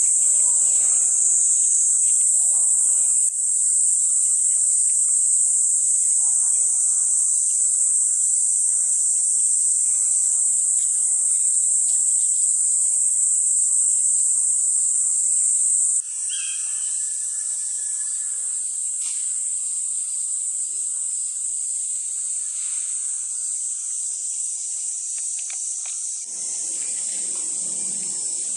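Cicadas singing in a loud, unbroken high-pitched drone, which dips a little in level about three seconds and again about sixteen seconds in. A few faint bird chirps sound underneath, about sixteen seconds in.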